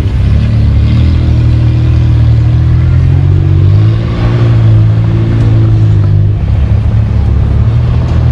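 Off-road four-wheel-drive engine running hard and revving, its pitch rising and falling a few times about halfway through.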